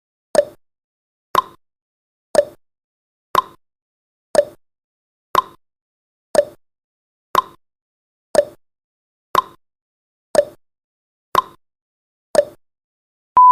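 Countdown timer sound effect ticking once a second, thirteen short ticks in all. Right at the end a steady high beep begins as the timer reaches zero.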